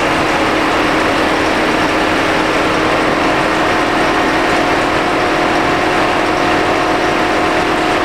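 Buick LaCrosse 2.4-litre eAssist engine idling, with the electric cooling fans running on high, which typically happens when a trouble code has been set. The drone is loud and steady, and a faint steady tone comes in about three seconds in.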